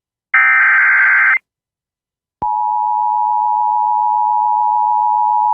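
Emergency Alert System tones: a one-second screech of SAME digital header data, then after a second of silence the steady two-tone EAS attention signal starts about two and a half seconds in and holds. Together they announce a National Weather Service severe thunderstorm warning.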